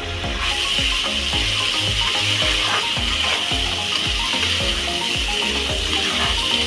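Background music with a steady beat and bass line over a steady sizzle of food frying in a pan.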